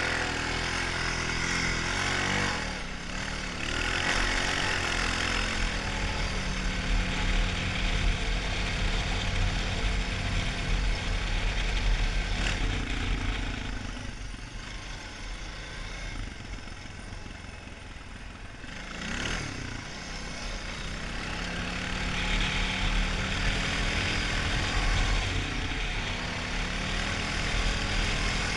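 Honda 450 ATV's single-cylinder four-stroke engine running while riding, easing off about halfway through and then picking up speed again.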